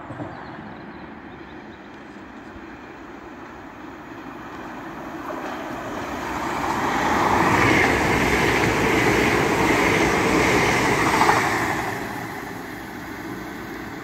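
Hull Trains Class 802 bi-mode express passing at speed on diesel power: a rush of engine and wheel-on-rail noise that builds as it approaches, is loudest for about four seconds as the train goes by, then fades away.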